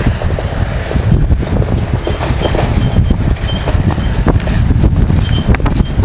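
MAN TGA truck with a drawbar grain trailer driving across a stubble field, its diesel engine running under heavy wind buffeting on the microphone.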